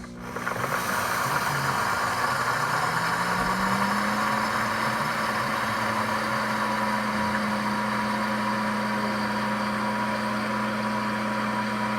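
Pampered Chef Deluxe Cooking Blender grinding whole coffee beans on its grind setting. The motor comes on, its hum rising in pitch over the first four seconds, then runs steady under a loud grinding noise.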